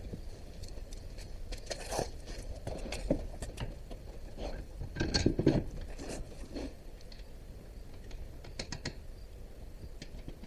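Scattered clinks and knocks of tools and parts being handled during work on an ATV's rear axle, with a busier cluster about halfway through.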